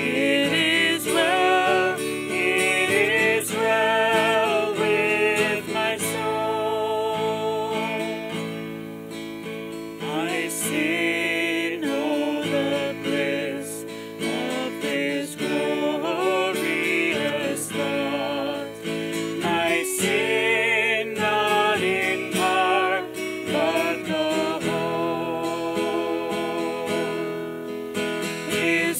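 A man and a woman singing together, accompanied by a strummed acoustic guitar.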